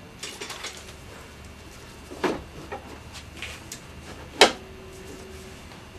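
Scattered light clicks and two sharper metal knocks, about two and four and a half seconds in: hitch bracket parts and a bolt being handled while the bolt holes are lined up.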